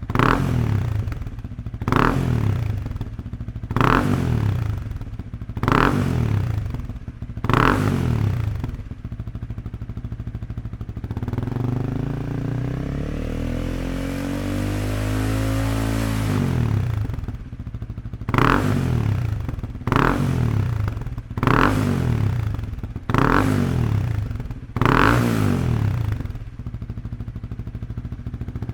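Honda CL300's single-cylinder engine through a Yoshimura R77S full-system exhaust, idling and free-revved: five quick throttle blips about two seconds apart, a longer rev that climbs for several seconds and falls back to idle, then five more quick blips.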